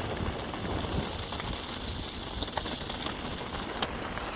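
Mountain bike tyres rolling over a dirt road, a steady crunching hiss mixed with wind on the microphone, with small clicks and rattles from the bike and one sharper click near the end.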